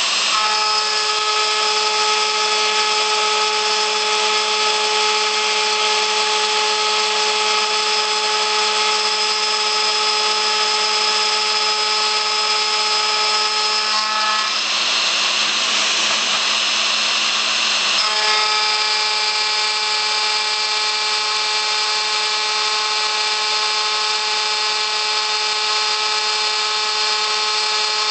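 ShopBot CNC router's variable-speed router spinning a 1/8-inch carbide end mill as it mills a shallow inset into steel plate: a loud, steady, high whine over a grinding cutting noise. A little past the middle, the whine drops out for about four seconds, leaving a hissier grind, then comes back.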